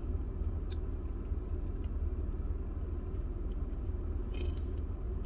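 A person chewing a bite of fried chicken sandwich with the mouth closed, with a few faint mouth clicks, over a steady low rumble inside a parked car.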